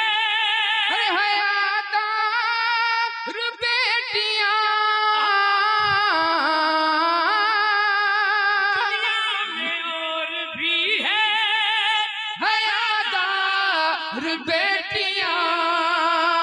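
A man singing a manqabat verse without accompaniment into a microphone, in long held notes that waver and glide between pitches.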